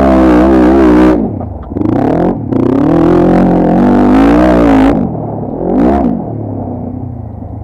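ATV (quad bike) engine running hard at high revs, then the throttle is shut about a second in. It is opened up again with rising and falling revs until about five seconds, gives one short rev near six seconds, and drops to a lower, quieter running speed.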